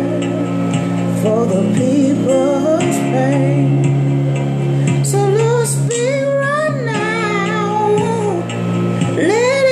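A woman singing a slow song, her voice wavering with vibrato over steady, sustained instrumental accompaniment.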